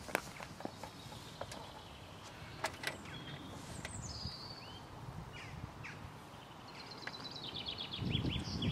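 Outdoor lineside ambience with birds chirping, including a quick run of repeated chirps near the end, and scattered sharp clicks. In the last second a low rumble starts to build: a train approaching from the tunnel.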